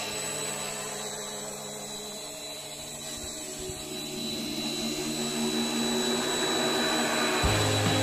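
Small electric RC scale Bell 212 helicopter's motors and rotors whining steadily. The sound drops off over the first few seconds, then spools back up and grows louder toward the end.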